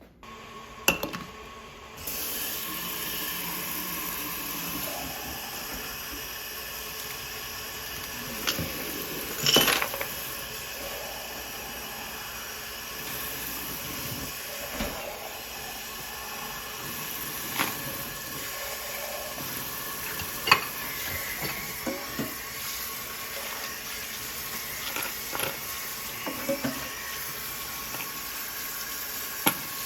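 Water running steadily as degreased metal bolts are rinsed off, with scattered clinks and knocks of the bolts being handled; the water starts about two seconds in.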